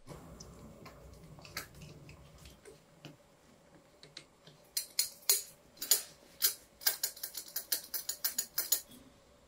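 Small metal parts and tools clicking while an LED projector headlight unit is screwed back together and handled. A few faint clicks come first, then about halfway in a quick, irregular run of sharp clicks, several a second, lasting about four seconds.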